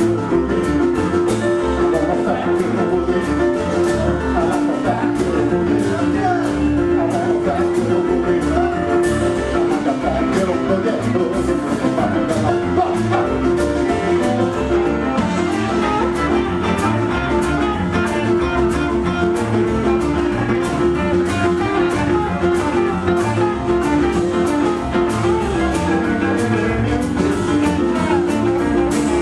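Live boogie-woogie band, piano-led, playing at a fast, steady beat.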